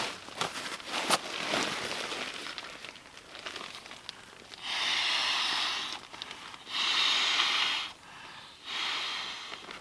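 An inflatable sleeping mat rustles and crinkles as it is handled, then is blown up by mouth: three long breaths, each about a second, rushing into the valve, the last one weaker.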